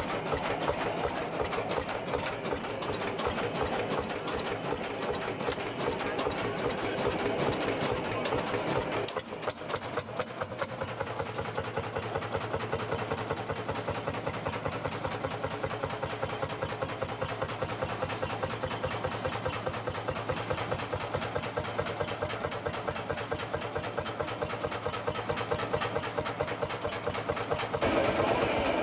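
1935 Lanz Eilbulldog L9531's single-cylinder two-stroke hot-bulb engine running with a steady, rapid beat. The sound shifts about nine seconds in.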